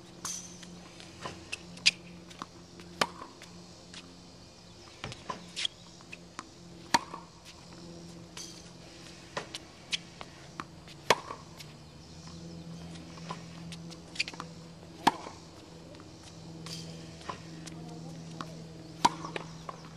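Tennis balls struck with a racket and bouncing on a hard court: sharp pops every second or two, over a low steady hum.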